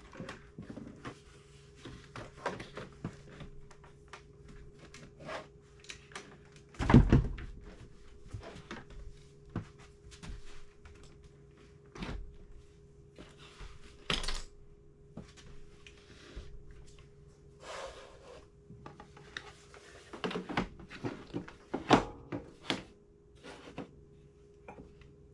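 Scattered knocks, clicks and thunks of a computer monitor and its cables being handled and set back up on a wooden desk, with one loud thud about seven seconds in. A faint steady hum runs underneath.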